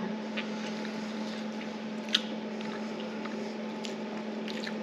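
Chewing and wet mouth sounds of someone eating soft roast chicken skin: small scattered clicks, one sharper click about two seconds in, over a steady low hum.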